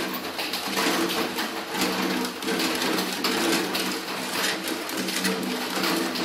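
Plastic ladle stirring and scraping chocolate agar-agar pudding mixture around an aluminium pot on a gas stove, in repeated scraping strokes over a steady low hum.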